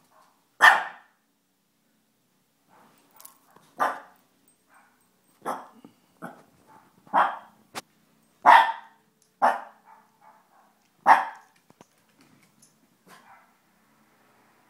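Small long-haired puppy barking in single sharp barks, about eight of them at irregular gaps of one to two seconds.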